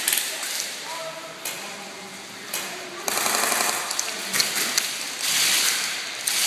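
Airsoft guns firing rapid full-auto bursts, three bursts of a second or more each with short pauses between them.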